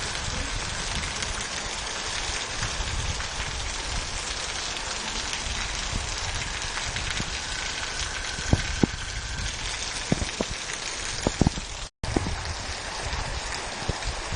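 Storm rain falling steadily and hard onto the ground and surfaces, an even hiss, with a few sharp knocks in the second half and a brief cut-out in the sound about twelve seconds in.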